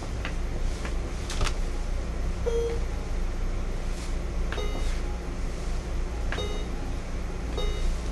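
Buttons pressed on the electronic keypad of a novelty puzzle box: a few sharp clicks, then four short electronic beeps spaced a second or more apart as a sequence is keyed in to unlock it. A steady low hum runs underneath.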